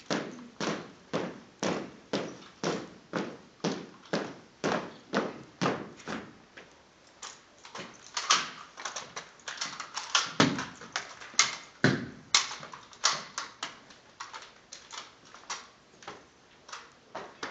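A rifle drill team's silent drill: steps and heel strikes on a hard dance floor in a steady cadence of about two a second, then a quicker, louder run of slaps and knocks from rifle handling, with two heavier thuds in the middle, before the knocks thin out.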